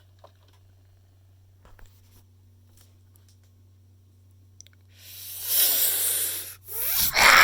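Steady low electrical hum with a few faint clicks. About five seconds in, a loud rustling, scraping noise comes in two bursts with a short break between them.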